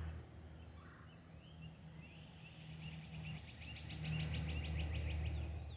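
A songbird singing a run of short high chirps that come faster and faster toward the end, over a steady low hum.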